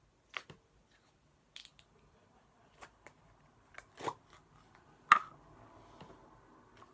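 Handling of a fluffy slime and its plastic container: a scattered run of short clicks and small pops, irregular, the loudest a sharp click about five seconds in.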